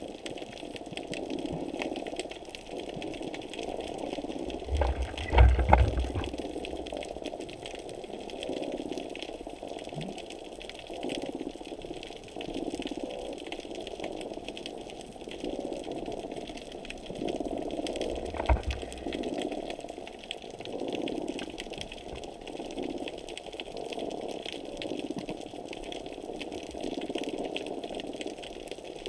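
Underwater sound picked up by a GoPro inside its waterproof housing on the seabed: a muffled, uneven water rush that swells and fades every second or so. A heavy low thump comes about five seconds in, and a shorter one about eighteen seconds in.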